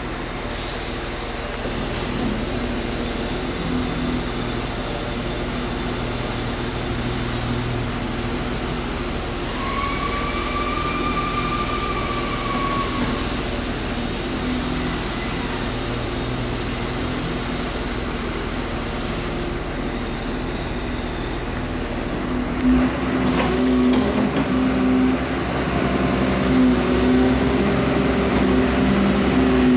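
Excavator diesel engine running steadily. A high, steady whine is heard for a few seconds about a third of the way in. Near two-thirds through, the engine note shifts and grows a little louder and more uneven.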